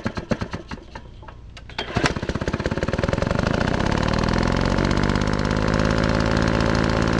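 An engine turning over with a rapid run of uneven knocks, catching about two seconds in and then running steadily, its pitch shifting a little as it settles.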